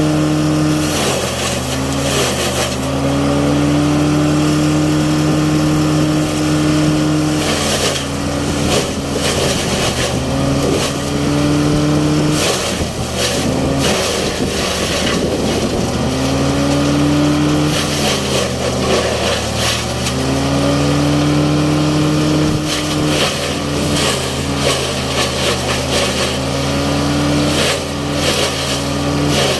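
Engine of silage machinery running under varying load: its pitch sags and recovers every few seconds, with a continuous clattering, rattling noise over it.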